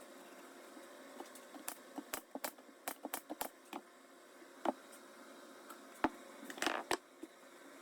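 Assembly of a cedar planter box with a brad nailer: an irregular run of sharp clicks and taps, bunched together in the first half, then a few single ones, and a short hiss about six and a half seconds in.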